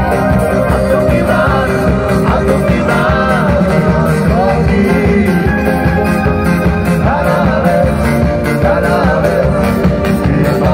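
Roma band music: an upbeat song with a steady beat and a wavering lead melody line.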